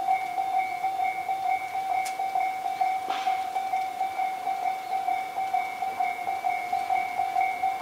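Railway level-crossing alarm ringing: a quick, steady run of electronic two-tone dings, warning that a train is approaching.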